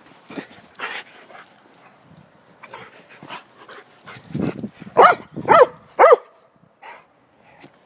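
A German Shepherd–Boxer mix dog barking three times in quick succession, about five seconds in. Before the barks there is a run of short rough noises and a low thump.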